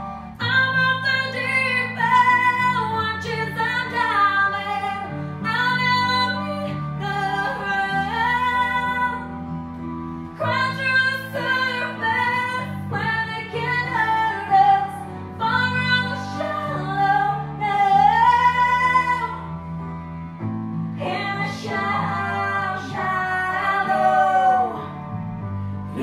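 A woman singing a song into a microphone over instrumental backing, with long held notes that waver in pitch.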